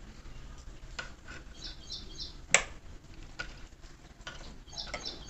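Light clicks and taps of test leads and wires being handled on a mixer grinder's switch wiring, with one sharp click about two and a half seconds in. Small birds chirp in quick groups of two or three in the background.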